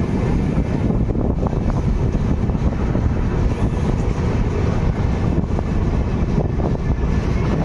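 Steady low rumble of a moving vehicle, with no distinct events.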